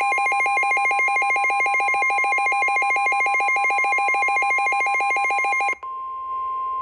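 Emergency alert attention signal for a tornado warning: a rapidly pulsing electronic warble over a steady beep. Near the end the warble stops and the steady beep carries on alone, a little quieter.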